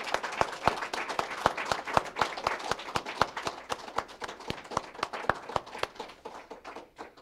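A small group of people applauding, with individual hand claps distinct, thinning out and dying away near the end.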